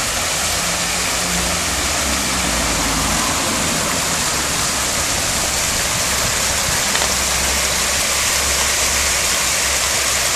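Steady rush of water pouring from the many spouts of a public stone fountain into its basin, with a low, even rumble underneath.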